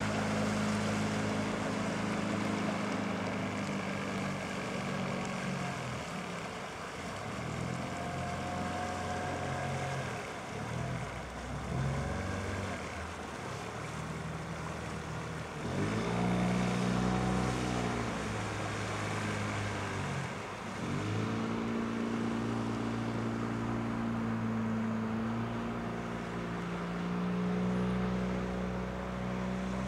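Honda 8 hp four-stroke outboard motor driving a small fishing boat under way, a steady engine drone whose pitch rises and falls several times.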